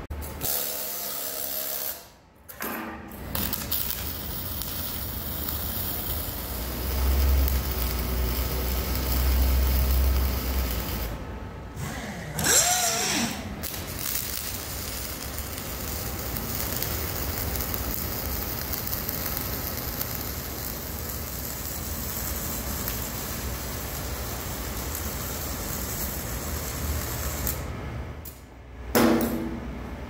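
Wire-feed (MIG) welding on the steel corner of a Caterpillar D8 dozer blade: a steady hiss of the welding arc, broken by a few short pauses.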